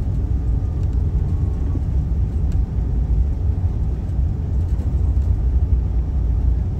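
Steady low rumble in the cabin of an Airbus A380 rolling slowly along the runway after touchdown, heard from a window seat over the wing.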